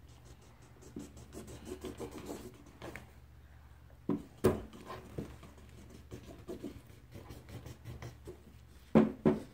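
Felt-tip markers scratching and dabbing on paper coloring sheets laid on a plastic table, in quick irregular strokes. A sharp knock about halfway through and a short louder clatter near the end stand out.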